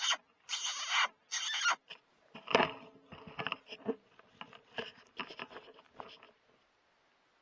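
Three short, high, wavering squeals in the first two seconds, then a few seconds of scattered clicks and rustling.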